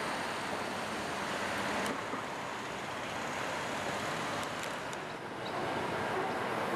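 Street traffic and a tram running: a steady noise, with a few light clicks about two seconds in and again near the middle.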